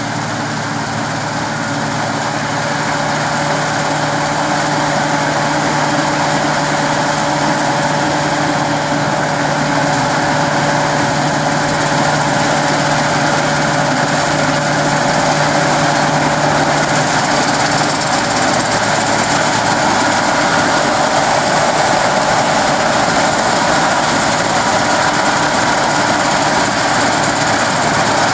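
Claas Dominator 106 combine harvester running steadily, a loud mechanical din with a constant whine in it. A low hum in the sound drops out about two-thirds of the way through.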